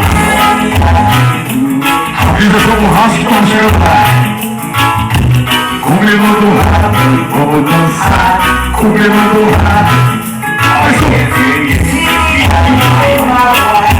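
Loud recorded music with a steady beat, guitar and singing, played over a sound system.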